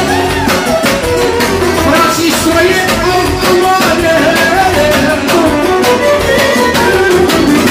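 Loud manele music: a man sings into a microphone over a backing with a steady beat and a wavering, ornamented melody line.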